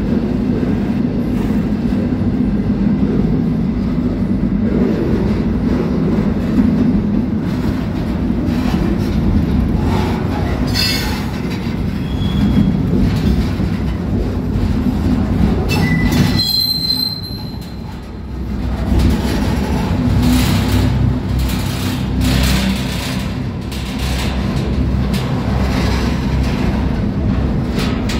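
A steady, loud low rumble, with a brief high-pitched squeal about sixteen seconds in and a short drop in level just after it.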